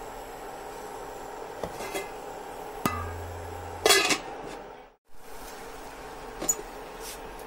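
Metal lid being set onto a pan of boiling chicken: a couple of light clinks, then a louder metallic clatter about four seconds in, over a steady hum. The sound cuts out briefly just after.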